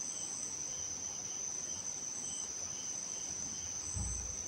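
Crickets chirping in the background: a steady high trill with short chirps repeating every half second or so. A soft low thump comes near the end.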